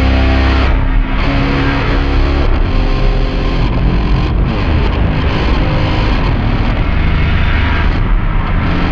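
Instrumental passage of a psychedelic prog-punk rock track: distorted electric guitar over heavy bass, without singing.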